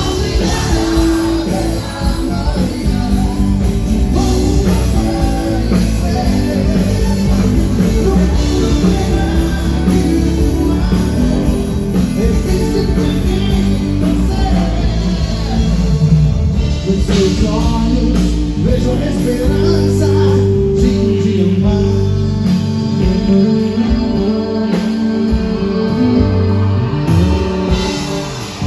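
Live gospel rock band playing through a concert PA: drum kit, electric bass and guitar, with a man singing the lead vocal into a microphone.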